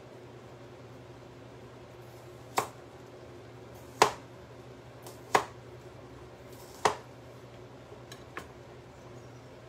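Kitchen knife slicing garlic cloves lengthwise on a cutting board: four sharp knocks of the blade on the board about a second and a half apart, then a few lighter taps near the end, over a steady low hum.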